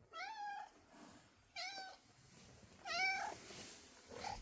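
Calico cat meowing: three clear meows about a second and a half apart, the first the longest, then a short fourth one at the end.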